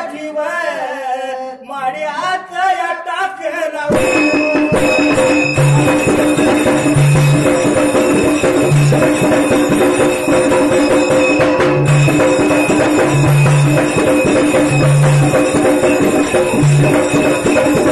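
Dhangari ovi folk music: singing over light percussion for the first few seconds, then from about four seconds in the full ensemble of barrel drums and hand cymbals plays a dense, steady rhythm under a held note, with deep drum strokes every second or so.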